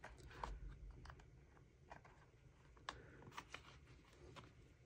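Near silence with faint, scattered small clicks as a plastic pry tool works the screen of an iPhone SE 3 loose from its frame.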